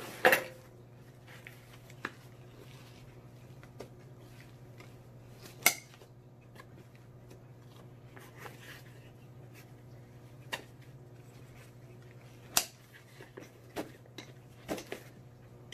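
Handling of an NcSTAR VISM padded nylon pistol case: scattered sharp clicks and rustles as the straps and plastic side-release buckles on its pocket are fastened and pulled snug, a few more close together near the end. A steady low hum runs underneath.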